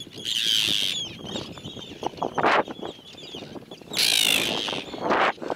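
A flock of Arctic terns making high, wavering alarm calls as they dive at a person's head, which is how they defend their nesting ground. There are two loud bursts of calling, about half a second in and about four seconds in, with shorter calls between them.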